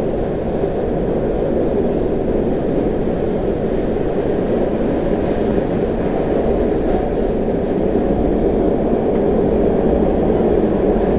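Loud steady roar inside an MBTA Orange Line Hawker Siddeley 01200-series subway car running at speed: wheels on rail and traction gear, growing a little louder near the end.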